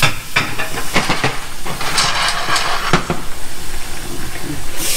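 Clams frying in hot oil in a pan covered with a glass lid: a steady, muffled sizzle with scattered pops and crackles. The sizzle grows brighter and louder just before the end.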